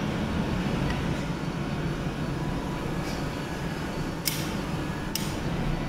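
Steady roar of a gas-fired glory hole, the glassblower's reheating furnace. Two brief high ticks come about four and five seconds in.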